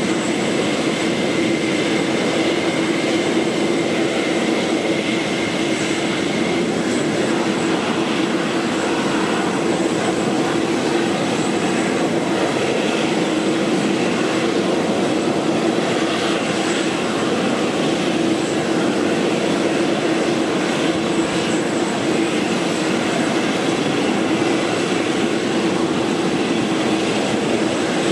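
Boeing 747-8 GEnx-2B turbofan engines running steadily at low power on the ground: an even jet rush with a steady low hum and a faint high whistle. A fainter whine fades out about six seconds in.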